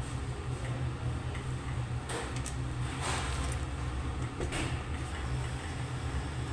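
Steady low hum in a kitchen, with a few brief knocks and rustles as a soy sauce bottle is capped and set down, about two, three and four and a half seconds in.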